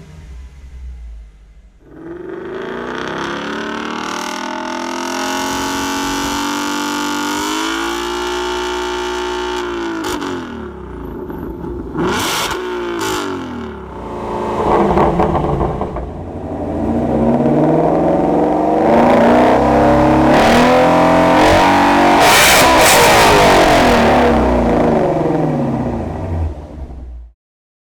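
Shelby Mustang 5.2-litre V8 revved while standing still. The revs climb and fall, a couple of sharp exhaust cracks follow around halfway, then the engine is held at high revs for about ten seconds before the sound cuts off suddenly near the end.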